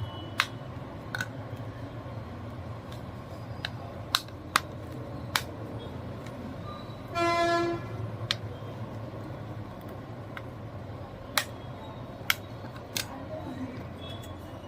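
Scattered sharp plastic clicks and snaps as a smartphone's back cover is pried off its clips, over a steady low hum. About halfway through, a short horn toot lasting about half a second is the loudest sound.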